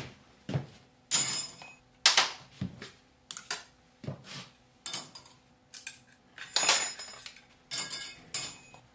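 Metal tools and motorcycle parts clinking and clattering against each other in a string of irregular sharp knocks, some with a short metallic ring.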